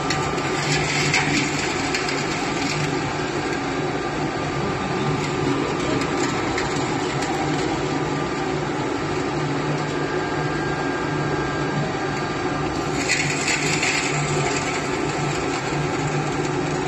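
Charcoal briquette screw extruder running steadily, its motor turning the auger that forces charcoal out through the square die as a continuous log. Two brief scratchy noises come through, about a second in and again about thirteen seconds in.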